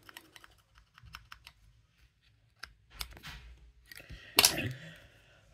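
Light plastic clicks and taps from a small plastic toy spring accessory and action figure being handled, with one louder, short rustling noise a little over four seconds in.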